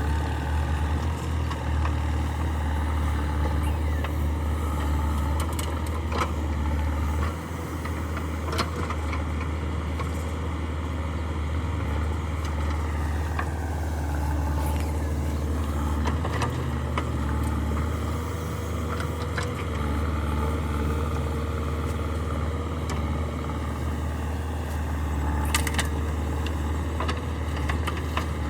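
Heavy diesel machinery engines running steadily with a deep hum. The engine note dips and rises again about halfway through, and a few sharp knocks are heard along the way.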